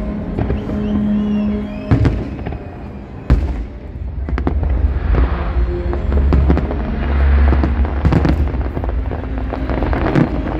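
Aerial fireworks shells bursting in a rapid series of sharp bangs over a deep, continuous rumble of booms, with music playing underneath.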